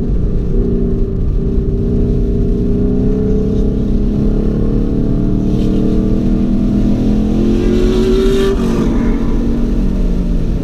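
Car engine heard from inside the cabin on a track lap, its revs climbing steadily under acceleration, then dropping sharply about eight and a half seconds in as the driver shifts up a gear.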